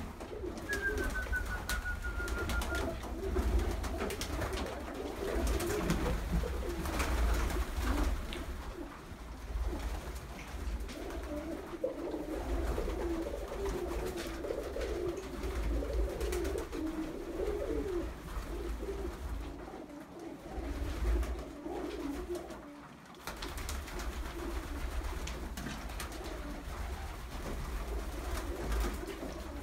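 Domestic pigeons cooing over one another almost without a break in a small, enclosed loft, with scattered sharp clicks and taps. A brief faint whistle, falling slightly in pitch, comes about a second in.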